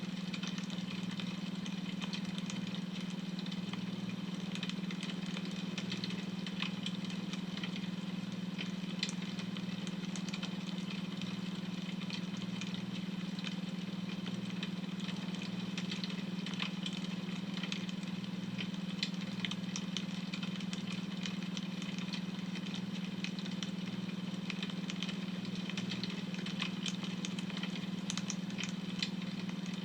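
Wood fire crackling with irregular small pops, over a steady low drone of a beta-wave tone track.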